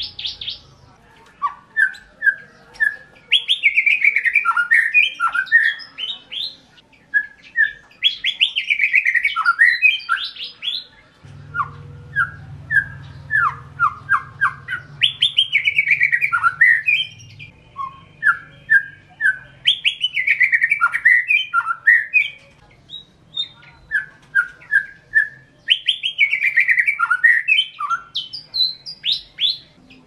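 A caged white-rumped shama (murai batu) singing: about five loud song phrases, one every five to six seconds. Each opens with a short run of separate whistled notes and breaks into a fast tumble of notes sweeping up and down.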